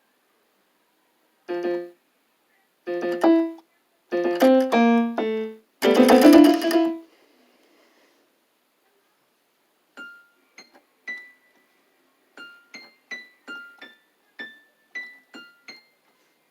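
Electronic keyboard playing piano-like notes: a few chords and short descending note runs, then a loud cluster of many keys at once about six seconds in. After a pause, brief high plinking notes are tapped out one at a time.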